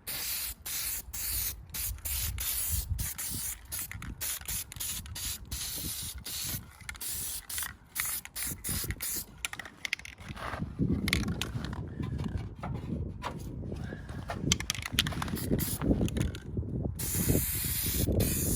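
Primer being sprayed onto a lawn tractor's steel frame: the spray hisses in many short bursts with brief pauses between them. Wind rumbles on the microphone underneath.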